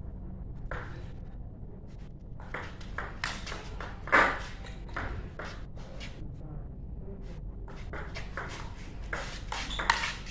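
Table tennis rally: the ball clicking off the paddles and the tabletop back and forth, sharp ticks about twice a second after a quieter start, with one much louder hit about four seconds in.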